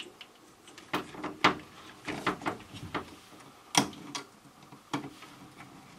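Scattered clicks and light knocks of hands working the wiring in a furnace's control compartment, pushing an insulated quarter-inch spade connector onto the spark terminal of the ignition control board. The sharpest knock comes a little before four seconds in.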